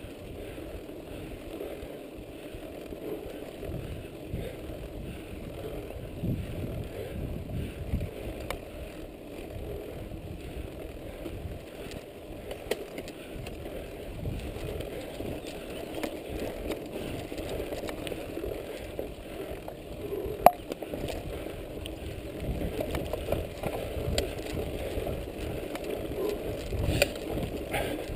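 Mountain bike riding over a dirt and stony track: tyres rolling on the ground and the bike rattling over bumps, with small clicks throughout and one sharp click about twenty seconds in.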